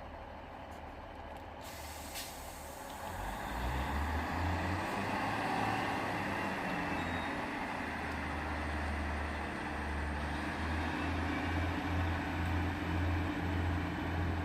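Northern Rail Sprinter diesel multiple unit pulling away from a station: its underfloor diesel engine's low rumble builds about three seconds in and then holds steady as the train moves off.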